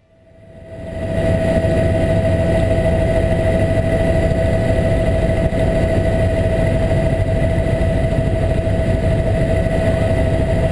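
Steady mechanical drone, a constant whine over a low rumble, like an engine running; it fades in over the first second.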